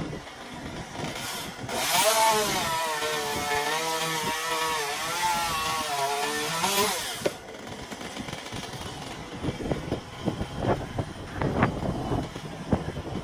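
Chainsaw running at full throttle through a cut from about two seconds in, its pitch wavering under load for some five seconds before it is let off suddenly. A scattering of sharp knocks and cracks follows.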